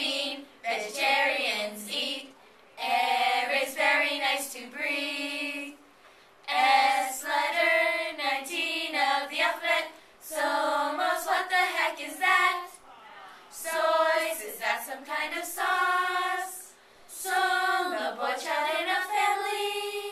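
A group of teenage girls singing together without accompaniment, in short phrases with brief pauses between them.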